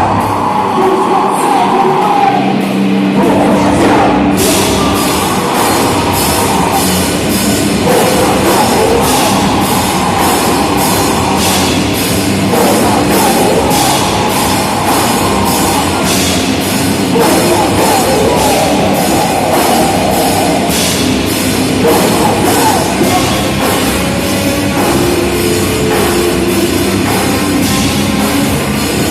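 Live rock band playing a heavy, distorted song. Drums and bass come in about four seconds in, joining the guitar for a full-band section with steady cymbal hits.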